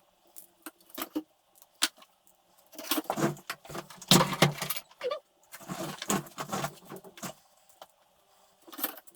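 Small metal parts clinking and rattling as they are handled: a few scattered clicks, then two longer stretches of jangling metal rattle around the middle.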